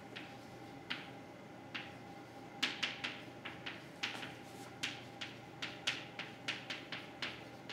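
Chalk being written on a blackboard: a run of short, sharp, irregular taps and ticks, thickest in the middle, over a faint steady hum.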